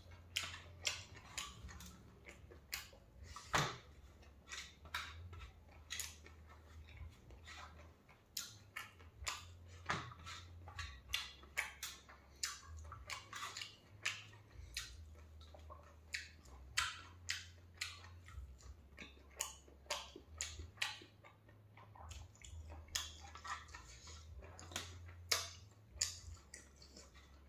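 A person eating by hand from a steel plate: irregular short crunches, chewing and mouth clicks, one or two a second.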